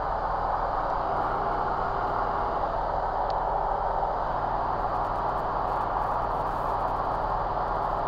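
Steady drone of a light aircraft's engine and propeller heard inside the cockpit in level flight, constant in pitch and loudness.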